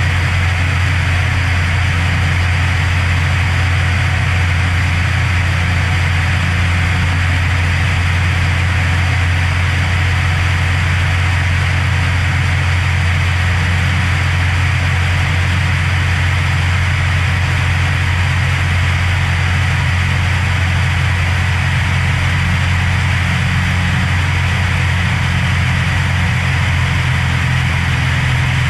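Cessna Hawk XP's six-cylinder Continental IO-360 engine and propeller droning steadily in flight, heard from a camera mounted outside on the airframe, with a hiss of passing air.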